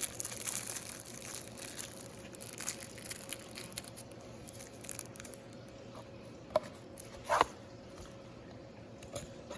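Gloved hands handling folding knives and their packaging: faint rustling with scattered small clicks, and two sharper clicks about six and a half and seven and a half seconds in.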